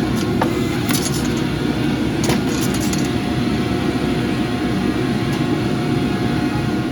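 Steady roar of a gas forge burner, with a few light metallic clinks in the first half.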